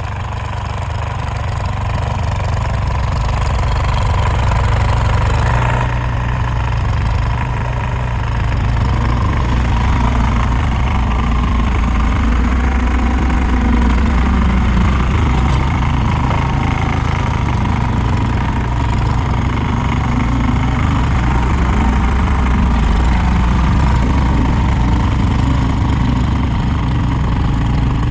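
Tractor engine running steadily while plowing snow, growing louder over the first few seconds and then holding level, with a thin steady whine above the low engine hum.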